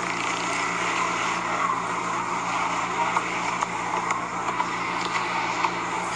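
Steady city street traffic noise through a phone microphone, with a low steady hum and a few faint clicks.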